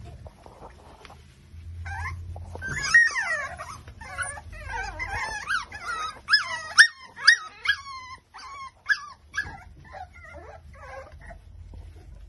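Five-week-old micro exotic bully puppies whining and whimpering in high cries that bend up and down, starting about two seconds in. A run of short, sharp yips comes in the middle, and the cries thin out near the end.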